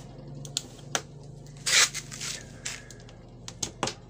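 Handling noise at an egg incubator: scattered sharp clicks and scrapes, with one short, loud rustle a little under two seconds in, over a steady low hum.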